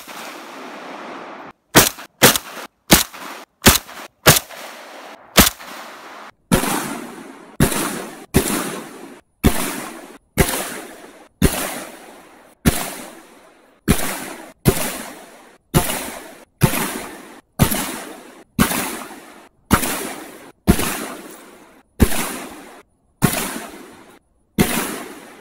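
Saiga 12 semi-automatic 12-gauge shotgun firing a long string of shots. There is a quick run of about seven in the first six seconds, then about eighteen more at roughly one-second intervals, each followed by a decaying echo.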